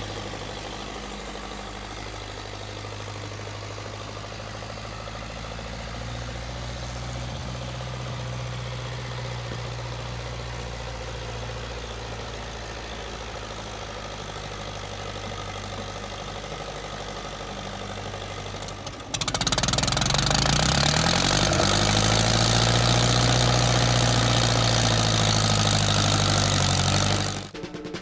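1952 Massey Ferguson TEA20's four-cylinder engine running steadily. About two-thirds of the way in it suddenly gets much louder, and its pitch rises and falls as it is revved, before cutting off near the end.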